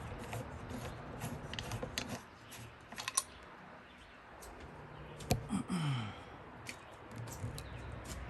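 Scattered light clicks and taps from handling, with one sharper click about five seconds in.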